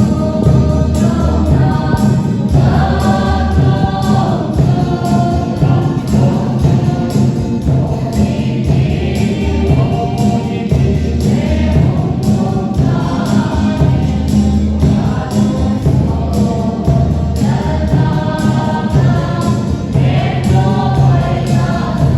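Music: a song sung by a group of voices over a bass line and a steady beat, cutting in suddenly at the start.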